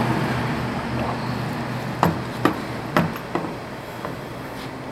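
Kayak rudder assembly and its line being handled: light knocks and clicks, four sharp ones in quick succession about two seconds in, over a steady background hum.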